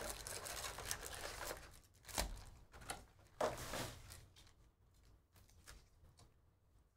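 Foil-wrapped trading card packs rustling and tapping as they are pulled from a cardboard hobby box and set down in stacks on a mat. A soft rustle comes first, then light knocks about two and three and a half seconds in, thinning to faint ticks.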